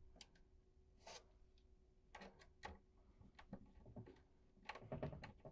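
Faint, scattered clicks and scrapes of a small flat-tip screwdriver working a screw terminal on an alarm control panel's terminal block as a wire is fastened in, a little busier near the end.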